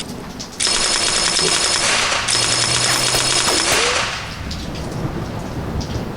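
Machine-gun fire in two long, very fast bursts, starting abruptly about half a second in and dying away after about four seconds.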